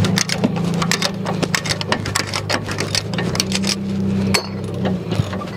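Ratchet wrench clicking in quick, uneven runs with metal clinks as it turns a rear brake caliper bolt, over a steady low hum. One sharper clack comes about four seconds in.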